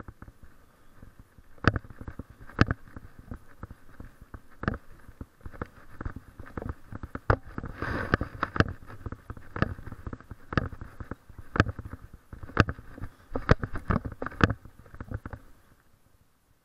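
Walking sounds of a person with a dog on a leash on pavement: a sharp knock about once a second in step with the stride, over steady rustling. It stops near the end as the walking halts.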